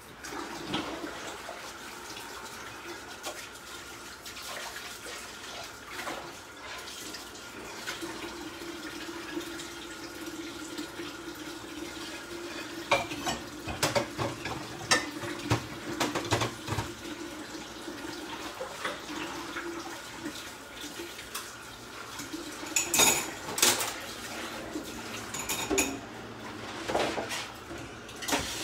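Water running from a kitchen tap while pots and utensils clatter in the sink, with bursts of sharp clinks and knocks in the second half.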